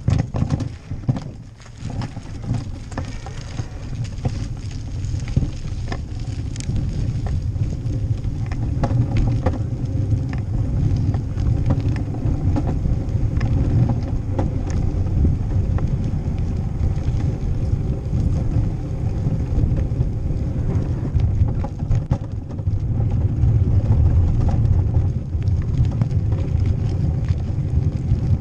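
Wind rumbling on the microphone of a bike-mounted GoPro action camera, with the bicycle rattling over paving stones; the noise grows louder after the first couple of seconds as the bike gets going.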